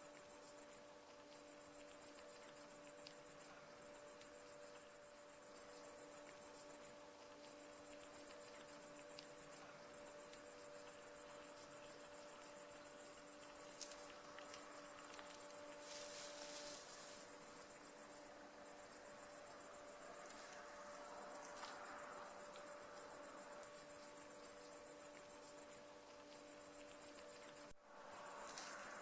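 A cricket singing high-pitched, fast-pulsing trills that last a few seconds each, broken by brief pauses.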